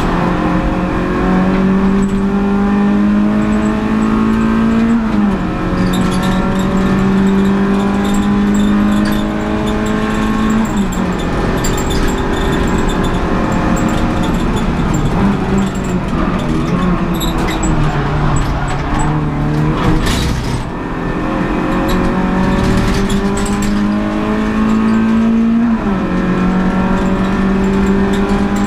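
Renault Clio 182's 2.0-litre four-cylinder engine under full throttle, heard from inside the cabin: the pitch climbs steadily and drops sharply at upshifts about 5 and 11 seconds in. In the middle the pitch falls lower and wavers as the car slows, then climbs again to another upshift near the end.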